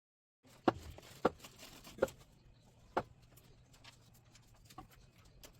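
Four sharp knocks and clicks within about two and a half seconds, then a few fainter ones, over a low steady hum. This is the weighing scale and its test weight being handled as the weight is checked again.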